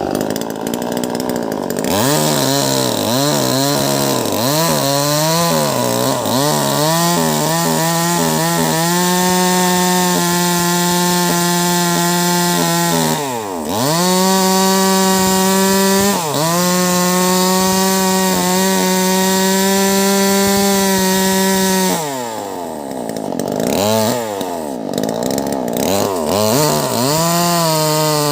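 Wagner 580 two-stroke chainsaw with a 16-inch bar ripping through a large log. It is revved up and down at first, then held at high speed in the cut and bogs down briefly twice. Near the end it drops to a lower speed for a few seconds before revving up again.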